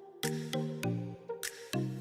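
Background music with a steady beat and a pitched bass line.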